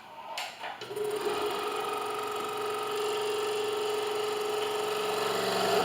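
Hawk BM26 scroll saw switched on and running up to speed within the first second, then running steadily, its motor and blade drive giving an even hum with a constant pitch.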